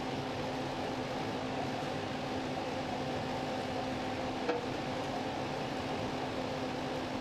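A steady machine hum with a constant low tone and its overtones, unchanging throughout, and a single faint click about four and a half seconds in.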